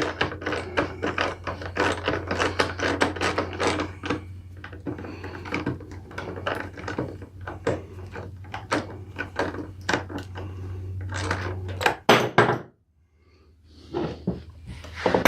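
Rapid clicking and scraping of a screwdriver working at a screw in the plastic front axle cover of a self-propelled mower, over a steady low hum. Both stop suddenly about twelve seconds in, and a few more scrapes follow near the end.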